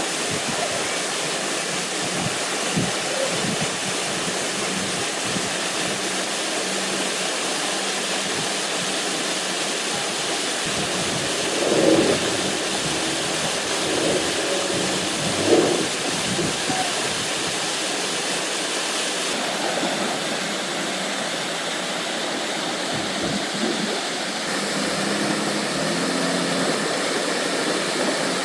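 Waterfall pouring steadily, an even rush of falling water. Two brief louder sounds rise over it about twelve and fifteen seconds in.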